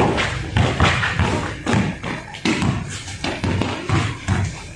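Basketball being dribbled on a concrete court: a run of uneven bouncing thuds, two or three a second.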